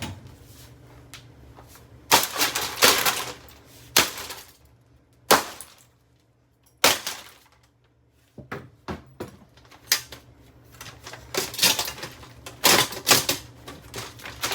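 Plastic box fan being smashed: hard hits with plastic cracking and clattering. A cluster of hits comes about two seconds in, single hits follow near four, five and seven seconds, then a quick run of hits fills the last few seconds.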